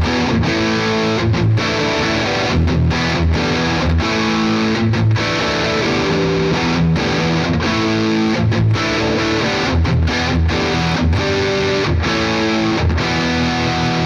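Gibson Les Paul Standard's neck humbucker through the overdriven Hot Rod channel of a Victory Sheriff 25 valve amp: distorted electric guitar chords played continuously, with short breaks between chord changes.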